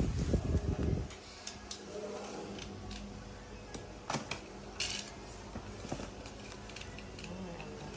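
A cardboard box knocked and slid across a tile floor, then a small knife slitting the packing tape on the box. The knife gives scattered clicks and short scratchy rasps over a faint steady hum.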